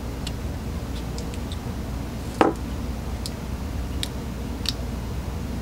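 Faint metal ticks and clicks from a thin screwdriver prying apart a Zenith-Stromberg CD-175 bypass valve housing to free its diaphragm and spring, with one louder knock about two and a half seconds in, over a steady low hum.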